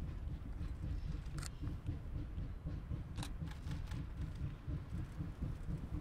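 A distant steam locomotive, a 4-4-0, working toward the listener, heard as a low, uneven rumble. Two short clicks come about a second and a half and three seconds in.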